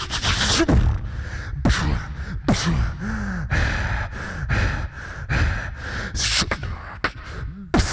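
Human beatboxing into a handheld microphone: a rhythm of kick and snare sounds made with the mouth, mixed with short sliding bass tones.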